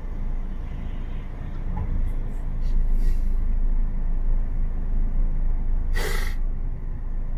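Low steady rumble of a car stopped in traffic, heard from inside the cabin, with a short sharp hiss about six seconds in.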